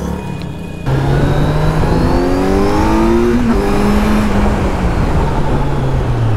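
Kawasaki Z900's inline-four engine idling for about a second, then running at road speed with wind rushing over the microphone. The engine note climbs as the bike accelerates, drops at a gear change about three and a half seconds in, then sinks slowly as the bike slows.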